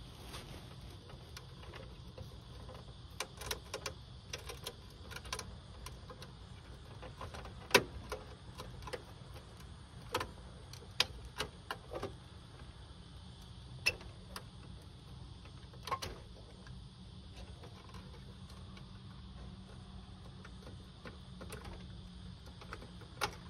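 Scattered sharp clicks and taps of hands working plastic wiring plugs and connectors on an air conditioner's indoor circuit board, irregularly spaced, over a steady low hum.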